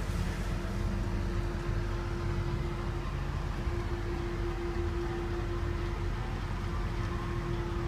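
Steady low rumble with a constant mid-pitched hum held throughout.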